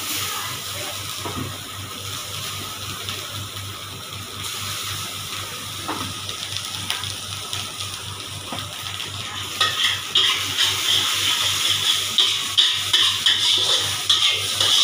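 Chicken fried rice being stir-fried in a black iron wok: a metal spatula scraping and tossing the rice against the wok over a steady sizzle, with a few sharp clanks. About two-thirds through, the sizzle and scraping get louder and quicker.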